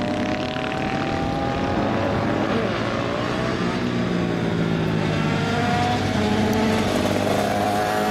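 Small racing motorcycle engines running hard on a track, their engine notes dipping and rising in pitch as the bikes pass.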